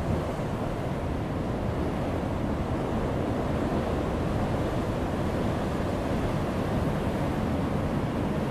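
Heavy ocean waves breaking on a rocky shore: a steady, dense rush of surf with no single crash standing out.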